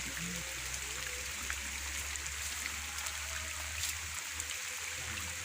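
Steady hiss of rain and flowing water, with scattered faint drip-like ticks. A low rumble underneath drops away about four seconds in.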